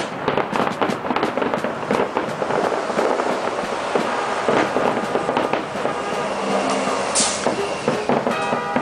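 Fireworks grand finale: a dense barrage of overlapping bangs and crackles, one after another with hardly a gap.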